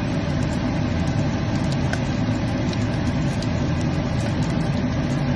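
Cubes of smoked pork back fat (slana) frying in a pot, sizzling with fine crackles as the fat starts to render, over a steady low hum.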